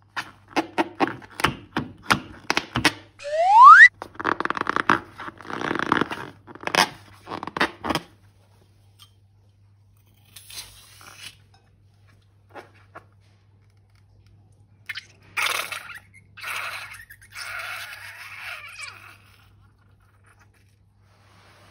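Close handling of slime and balloons: a dense run of crunchy crackles and squishes for the first several seconds, with a short rising squeak among them. Sparser scraping and crinkling follows.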